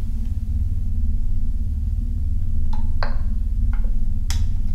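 A loud, steady low rumbling drone, with a few short clicks in the second half and a sharper tick near the end.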